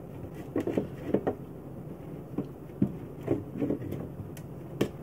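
Fingers smearing butter over a non-stick cookie sheet: irregular soft scrapes and knocks of hand on the pan, about half a dozen, over a steady low hum.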